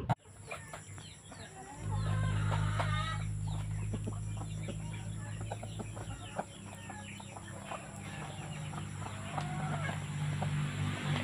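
A flock of chickens clucking as they peck at cut grass. A steady low hum comes in about two seconds in and runs underneath.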